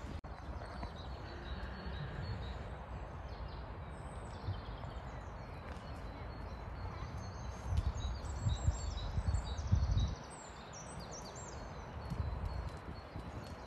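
Wind buffeting the microphone outdoors, gusting strongest between about 8 and 10 seconds in, with small birds chirping in the surrounding trees.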